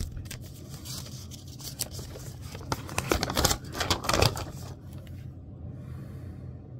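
Paper rustling and crackling as a sheet is handled and unfolded, in quick irregular crinkles that are loudest about three to four seconds in, then a softer brushing near the end.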